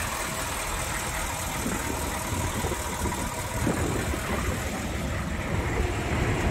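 GM pickup's 6.5-litre V8 diesel idling with a steady low rumble.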